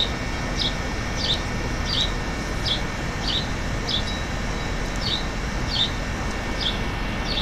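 A bird chirping over and over, one short high chirp about every 0.7 seconds, over a steady low background rumble.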